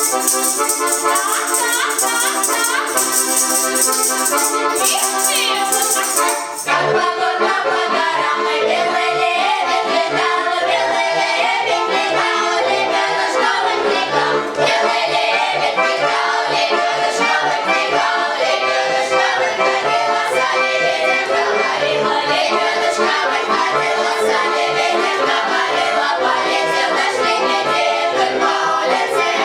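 Russian folk song played on an accordion; after an accordion introduction, the ensemble's fuller sound comes in about six and a half seconds in, with voices.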